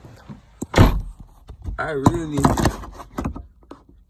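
Phone handled and repositioned inside a car: a loud thump about a second in, then knocks, rustling and clicks, with a brief stretch of voice in the middle.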